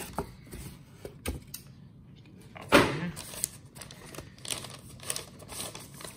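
Kraft-paper envelope rustling and crinkling as it is handled and a comic book in a clear plastic case is slid out of it, with scattered light taps and one louder handling noise about three seconds in.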